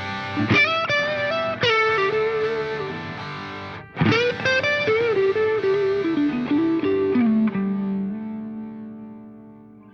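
Background music: a distorted electric guitar playing struck chords with sliding notes, dying away and fading out near the end.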